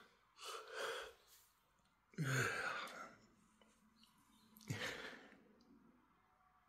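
A sleeping, dreaming husky making three soft breathy sighs, about half a second, two seconds and nearly five seconds in; the second is the loudest.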